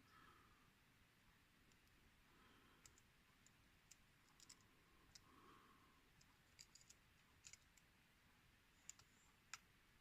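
Faint, irregular clicks and ticks of a lock pick working the pins of a pin-tumbler lock under tension, the lock sitting in a false set; the ticks come scattered a few at a time, more of them in the second half.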